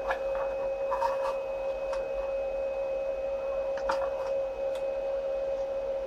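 Light scraping and a few soft clicks from hands handling the head and frame of a DIY CNC laser engraver, over a steady tone held at one pitch.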